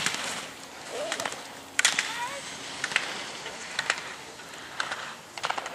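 A slalom racer's skis carving and scraping on hard snow, the hiss loudest at the start, with sharp clacks about once a second as the racer knocks the slalom gate poles aside.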